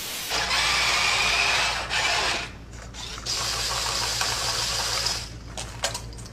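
A small motorised machine whirring in two spells, each with a steady whine, over a low hum, with a few clicks near the end.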